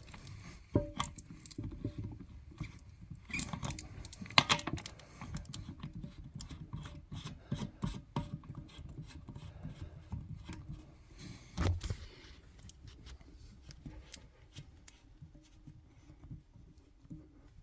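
Small clicks, scrapes and rubbing of a new toilet supply line's coupling nut being threaded on and hand-tightened, with a few sharper knocks, the loudest about a second in and again just before twelve seconds. The handling grows sparser and quieter toward the end.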